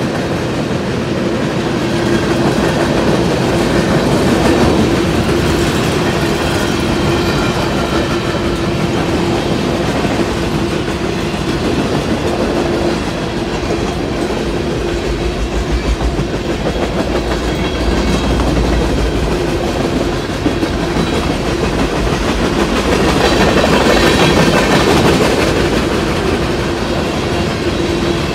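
Freight train cars rolling past a grade crossing: the steady noise of the wheels running on the rails, swelling and easing slightly as the cars go by, with a steady droning tone underneath.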